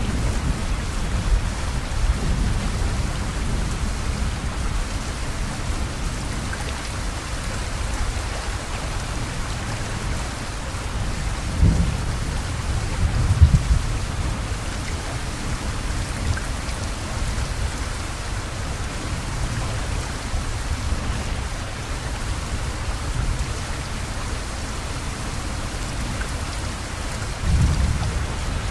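Heavy rain falling steadily, with a few brief low rumbling surges about twelve seconds in and again near the end.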